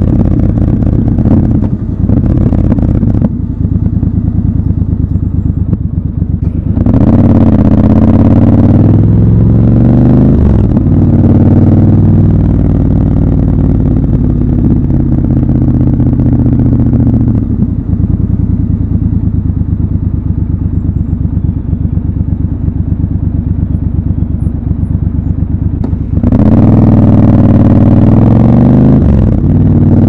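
Triumph Scrambler 1200 XC's 1200 cc parallel-twin engine running under the rider. It pulls up in pitch under throttle about a quarter of the way in, holds a steady note while cruising, drops to a quieter, lower pulsing beat for several seconds, then pulls up in pitch again near the end.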